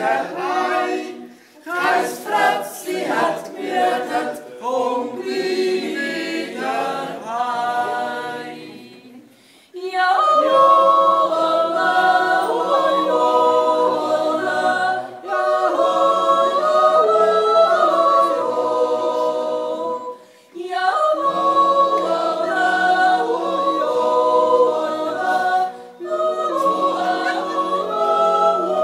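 A Swiss yodel club's a cappella choir singing. For the first several seconds the phrases are short and choppy. From about ten seconds in the choir sings full, held chords, breaking off briefly for breath three times.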